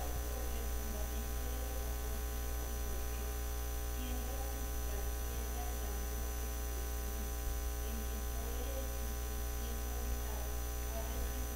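Steady electrical mains hum in the audio system, with a faint, indistinct voice under it.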